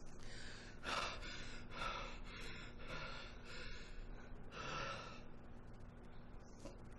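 Heavy, ragged human breathing: short sharp breaths in quick succession, about two a second at first, then a longer one near five seconds, and fainter after that.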